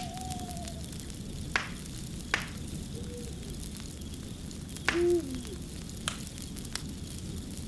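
Wood fire crackling: a steady low rumble with sharp pops scattered through, about five of them. A few short, low, wavering tones sound over it, the loudest about five seconds in.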